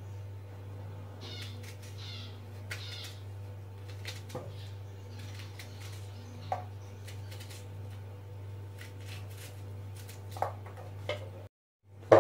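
Knife cutting a red onion held in the hand, with a few short clicks as pieces drop into an empty aluminium pot, over a steady low hum. The sound drops out briefly near the end.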